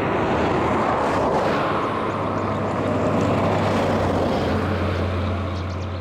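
Engine running steadily: a constant low hum under a broad rushing noise, the sound of a motor vehicle moving.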